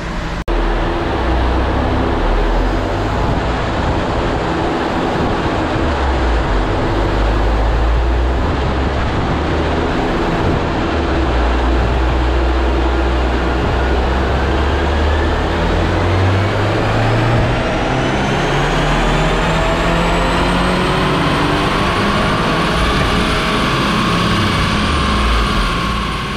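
2022 Subaru WRX's turbocharged 2.4-litre flat-four running hard under load on a chassis dyno during a power pull. From about halfway a whine rises steadily in pitch as the revs climb, levels off near the end, and then the sound drops away as the pull ends.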